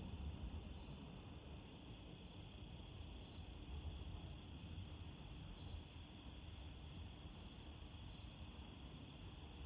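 Faint night ambience: a steady chorus of crickets trilling, with low, uneven wind rumble on the microphone.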